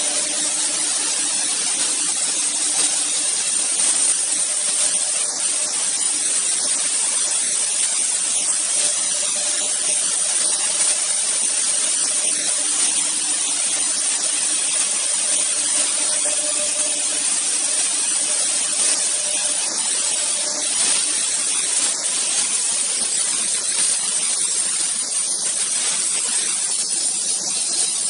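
Two high-speed spindles of an AKM1325-2 double-head CNC router cutting into a wood board, a steady high hiss with a faint hum that comes and goes.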